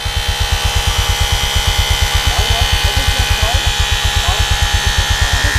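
Handheld portable electric air compressor running, with a fast, steady pulsing chug from its pump as it inflates a motorcycle's new inner tube.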